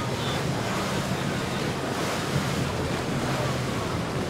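Boat engines running with a steady low hum over the wash of water, with wind buffeting the microphone.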